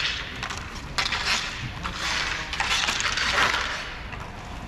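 Roller hockey play: sharp clacks of sticks and puck at the start and about a second in, then a longer clattering, scraping rush of skate wheels, sticks and puck on the rink surface.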